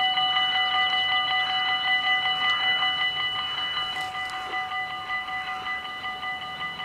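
Automatic level-crossing bells of a Dutch AHOB crossing ringing with rapid, even strikes while the barriers come down, warning of an approaching train. The ringing grows gradually quieter.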